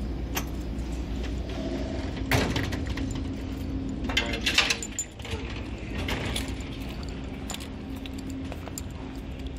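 Light clinks and rattles of small hard items being handled, loudest about two and a half and four and a half seconds in, over a steady low hum.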